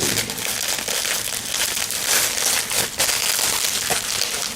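Packing material crinkling and rustling continuously as it is handled and pulled out of a parcel, with many small irregular crackles.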